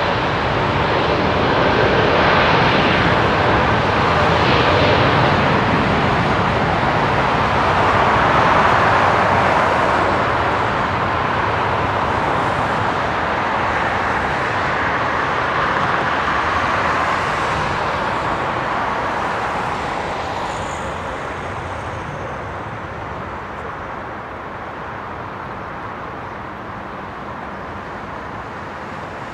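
Boeing 787-9 Dreamliner's jet engines running as the airliner taxis past and onto the runway, a steady roar that fades over the second half as it moves away.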